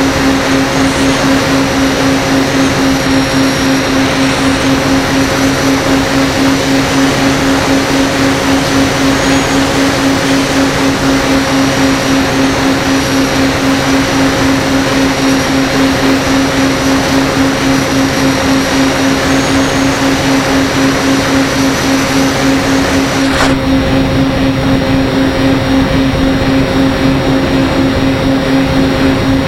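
Steady drone of an FPV aircraft's propeller motor holding one pitch over a dense rushing noise. A little past three-quarters through, the sound suddenly turns duller as the high hiss drops away.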